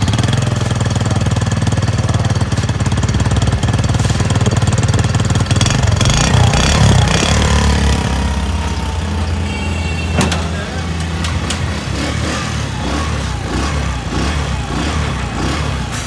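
Exhaust of a Honda CD 70 Dream's small single-cylinder four-stroke engine running steadily at idle, a little louder between about six and eight seconds in. A single sharp click comes about ten seconds in.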